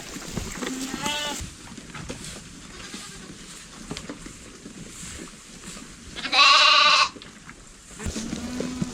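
Sheep bleating: a short, wavering bleat about a second in, then a loud, longer bleat about six and a half seconds in.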